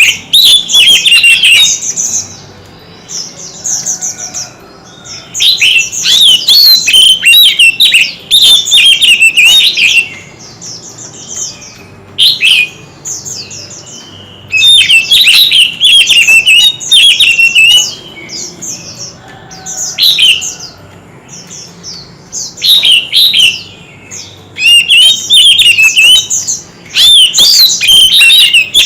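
White-rumped shama singing loudly in fierce, competitive song: bouts of a few seconds of rapid, varied whistled and chattering phrases, with short quieter pauses between them.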